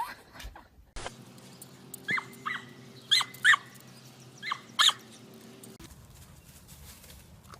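Dog giving about six short, high-pitched yelps, each sliding down in pitch, spread over about three seconds.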